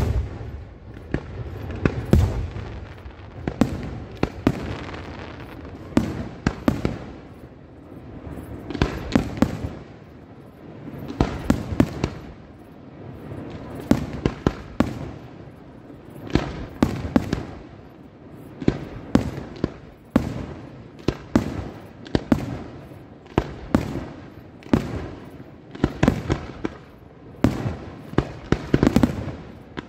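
Aerial firework shells bursting overhead: volleys of sharp bangs every two to three seconds, with a deep boom about two seconds in.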